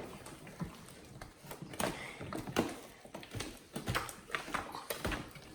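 Hands squishing and kneading a large mass of fluffy shaving-cream slime as it activates, making irregular wet squelches and pops several times a second.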